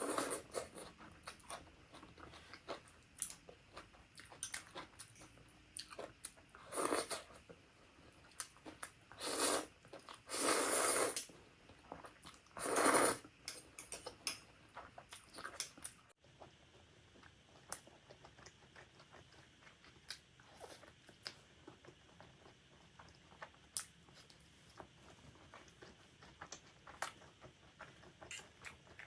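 Close-miked eating: chewing and crunching of black bean noodles and kimchi, with many small wet clicks and, in the first half, four longer noisy slurps about a second each.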